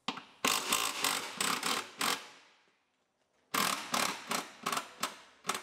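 Cordless impact wrench rattling in short, repeated bursts as it loosens and backs out crossmember bolts, in two runs with a pause of about a second between them.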